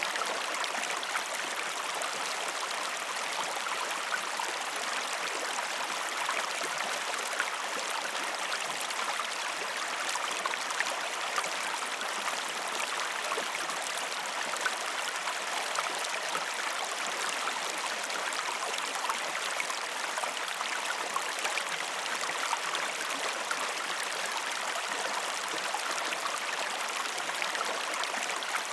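Waterfall: water falling and splashing in a steady rushing hiss, with fine droplet splashes all through and no low rumble.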